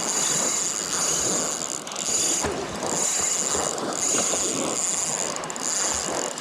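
Fishing reel drag screaming as line is stripped off by a running fish, a loud high-pitched whine that breaks off briefly a few times.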